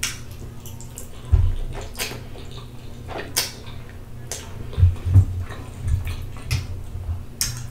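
Close-miked wet chewing and slurping of spaghetti in tomato sauce, with irregular sticky mouth clicks and smacks.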